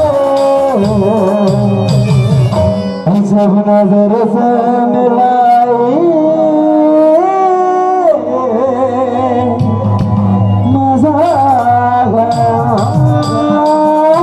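Chhattisgarhi folk song music played live: a keyboard melody moving in held, stepping notes over steady dholak drumming.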